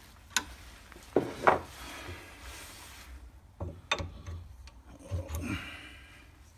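Tightening a wood bangle blank in a four-jaw lathe chuck: the chuck key turns the chuck's gearing with a string of clicks and knocks, the loudest just over a second in, along with hands rubbing on the wood. Later come more clicks as a metal gauge is set against the blank.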